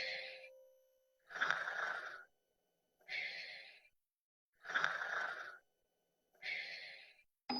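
Soft breathy exhales, like a person sighing or shushing, repeated about every one and a half to two seconds, each fading out before a short silence.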